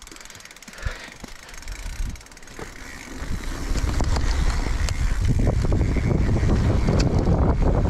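Mountain bike rolling down a dirt trail: a few clicks and knocks at first, then from about three and a half seconds in a loud, steady low rumble of wind buffeting the camera microphone and tyres on the dirt as the bike picks up speed.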